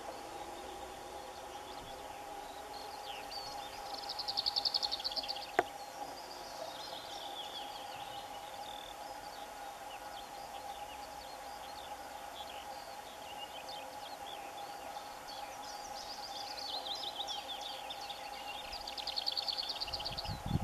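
Lesser whitethroat singing two phrases, about four seconds in and near the end: each is a short scratchy warble ending in a fast, dry rattle of repeated notes. A faint steady hum runs underneath, and there is a single click about five seconds in.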